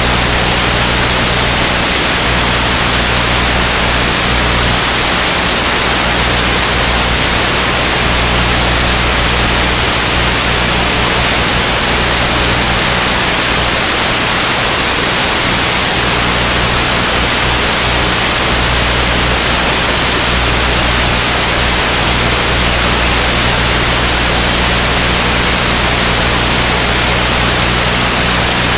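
Steady, loud hiss of static with a low, even hum underneath: the empty audio channel of an analog FPV video link.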